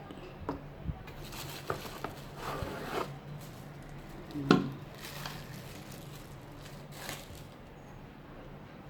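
Unboxing handling noise from a personal blender's plastic parts and packaging: scattered light clicks and rustling, with one sharper knock about four and a half seconds in.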